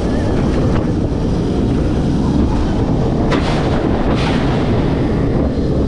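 Wind buffeting the microphone over the rumble of a Bolliger & Mabillard flying coaster train running along its track, with two brief clatters midway.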